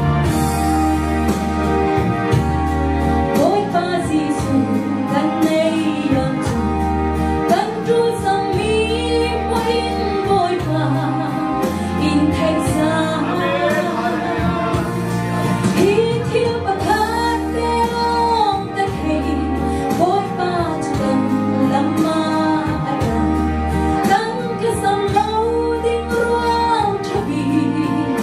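A woman singing a gospel song through a handheld microphone over amplified instrumental accompaniment, with a bass line and a steady beat.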